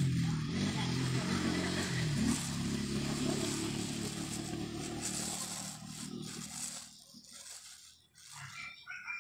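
Clear plastic bag crinkling and rustling as it is pulled and peeled away from soil around a tamarind bonsai stump, busiest for the first six seconds and then thinning out. A low steady hum runs underneath during the first few seconds.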